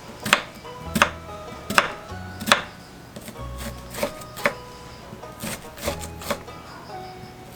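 A kitchen knife chopping on a cutting board, single sharp strokes about every half second to a second, over soft background music.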